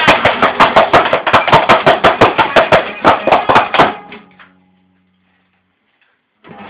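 Noise grind music: dense distorted noise driven by rapid, evenly spaced hits, which cuts off about four seconds in, leaving a low note ringing out and fading. A new burst of music starts just before the end.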